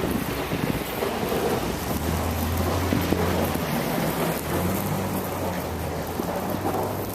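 Storm wind buffeting the microphone as a steady rushing noise. A low, steady engine hum joins about two seconds in.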